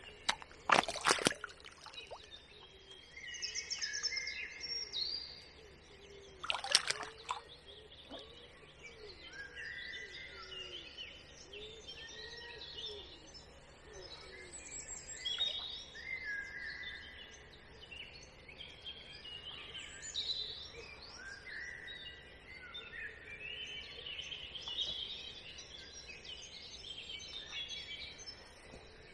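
Songbirds singing, many short overlapping calls and phrases, with a few sharp clicks or knocks about a second in and again about seven seconds in.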